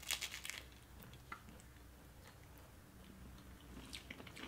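Two people biting into a giant strawberry Caplico cone snack with a hard, dry topping: a burst of crunching in the first half second, then quiet chewing with a few small crunches.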